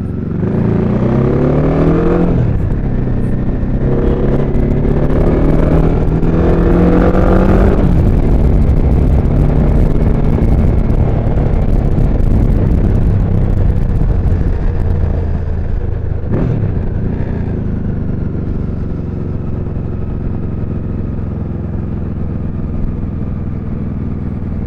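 Xiangshui JS700 motorcycle engine accelerating away through the gears: the revs climb, drop at a gear change about two seconds in, climb again until about eight seconds in, then settle to a steady cruise. A single click comes about sixteen seconds in.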